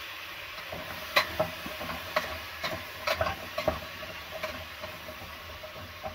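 Vegetables sizzling in a stainless-steel pot as they are stirred, the utensil knocking against the pot irregularly about a dozen times over a steady sizzle.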